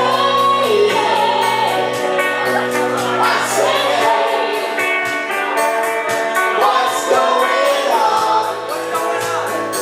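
Live pop-rock cover: singing over instrumental accompaniment with a steady, regular beat.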